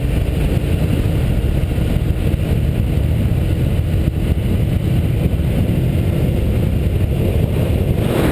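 Steady wind rush and road noise of a vehicle on the move. A faint engine tone shows under it in the first few seconds.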